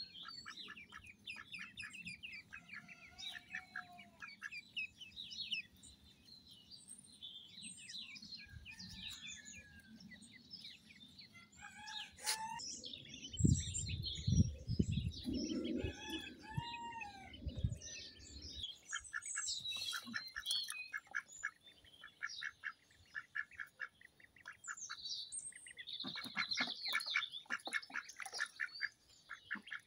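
Indian Runner ducklings peeping in quick high trains of chirps throughout. About halfway through, a few seconds of low thumps and rumble.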